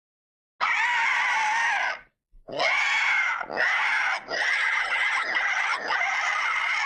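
Creature scream sound effect for the fictional 'Siren Fish' monster: a harsh, high screech about a second and a half long, then after a short gap a longer screeching call broken into several parts, held on a steady high pitch.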